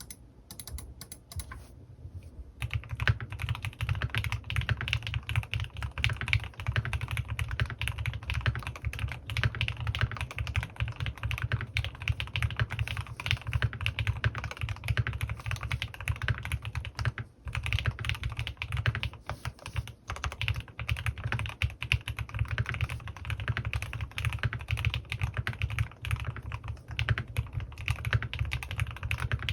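Continuous typing on a CannonKeys Rekt1800 custom mechanical keyboard with lubed Gateron North Pole linear switches, PBT keycaps and foam inside the case. A few scattered keystrokes come first, then steady fast typing from about two and a half seconds in, with a brief pause a little past halfway.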